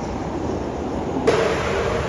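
Buses driving past on a busy road, engine and tyre noise. Just over a second in, a louder rush of noise starts suddenly, carrying a steady mid-pitched whine, as a double-decker bus comes in.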